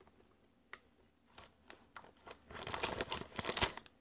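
Plastic candy wrappers crinkling as they are handled: a few light clicks and rustles at first, then a dense spell of crinkling in the second half, with a light knock near the end.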